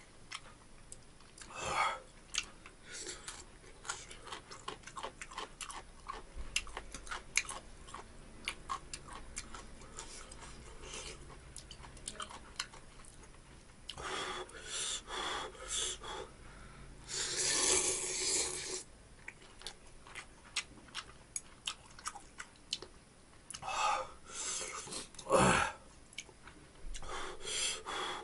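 A person eating instant ramyeon noodles: steady chewing with many small clicks, broken by loud slurps of noodles, about halfway in, again a few seconds later (the longest), and twice near the end.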